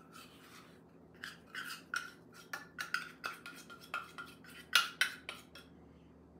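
A spoon stirring and scraping thick peanut butter and flour dough in a plastic mixing bowl, in an irregular run of sharp clicks and scrapes that starts about a second in, with one louder knock near the end.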